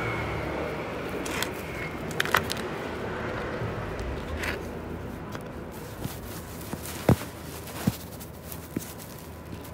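Fingers pressing and scraping gritty potting soil in a plastic pot, with scattered crackles and a few sharp clicks in the second half, over a steady low background noise.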